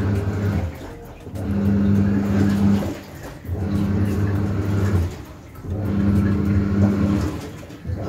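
Haier HWM90-1789 top-loading washing machine agitating a load of bed sheets: the pulsator motor hums in bursts of about a second and a half with short pauses between as it reverses, churning and sloshing the soapy water.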